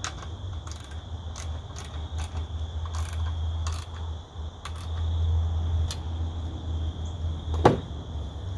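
Scattered metallic clicks from a wrench working the mounting bolts of an outboard's lower unit, over a steady chirr of crickets and a low rumble. One sharp, louder knock comes near the end.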